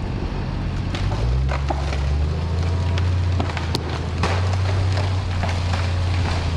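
An engine running steadily at low speed, a deep drone that firms up about a second in, with scattered crackling and snapping over it.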